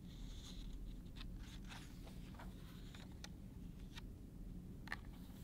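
A hardcover picture book's page being turned and smoothed flat by hand: soft paper rustles and a few light clicks over a steady low hum.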